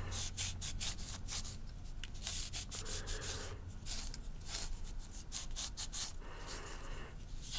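A cloth dampened with rubbing alcohol rubbing back and forth over a knife's carbon fiber handle in quick, repeated scrubbing strokes.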